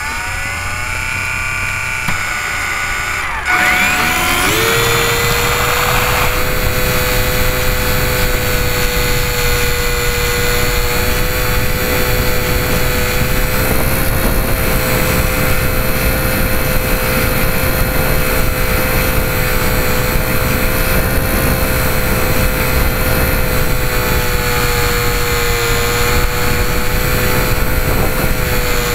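Twin electric motors and propellers of a Parkzone Ultra Micro Mosquito RC plane, heard from a camera on the plane itself: a high whine that bends in pitch at first, then jumps louder about three and a half seconds in and holds a steady pitch in flight, with wind rushing over the microphone. The owner says one of the two motors was failing.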